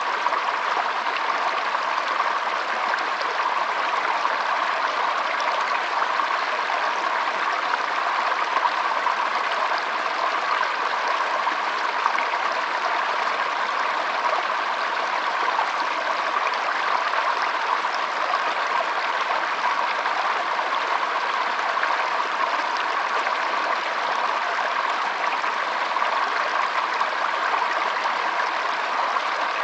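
Flowing water: a steady, unbroken rush with no pauses or changes.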